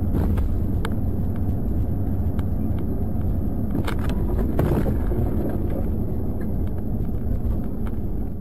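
Steady low rumble of a car's engine and tyres at highway speed, heard from inside the cabin. A few sharp knocks cut through it, the loudest about four seconds in.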